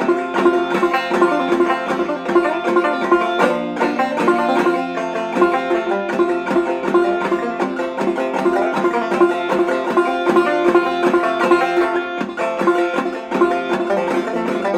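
Solo banjo played clawhammer style: an instrumental break of fast, rhythmic picking over a steady ringing drone string.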